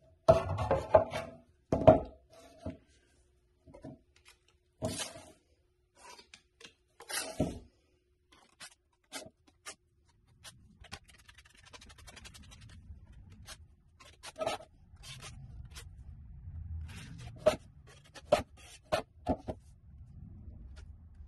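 Metal putty knife clinking and scraping against a metal mud pan as it is loaded with Feather Finish cement, then rasping and scraping in strokes as the cement is spread thin over a countertop. A faint low rumble runs under the second half.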